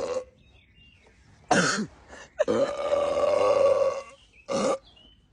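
A person burping after gulping a bottle of Sprite: a short burp about a second and a half in, then a long drawn-out burp of about a second and a half, and another short one near the end.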